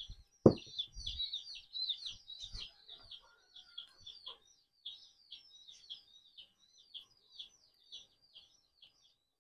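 A bird chirping over and over in short, high, downward notes, about two to three a second, with a few dull knocks in the first couple of seconds.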